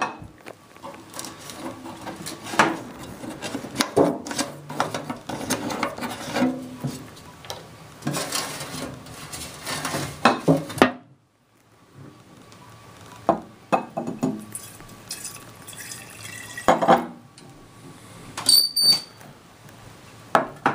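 Glass and metal parts of a kerosene lamp being handled: repeated knocks and clinks of the glass font and metal burner, with denatured alcohol sloshing inside the glass font. A short break about halfway through, and a bright ringing glass clink near the end.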